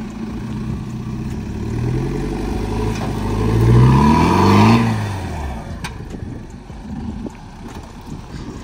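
A 4x4 SUV's engine revving as it drives over a small off-road obstacle: the pitch climbs to a peak about four to five seconds in, the loudest part, then drops back. A single sharp knock comes about six seconds in.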